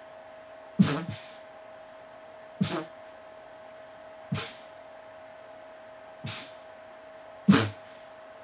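A man's short, breathy grunting exhalations during sexual arousal, five of them about every one and a half to two seconds, the last the loudest, over a steady faint electrical hum.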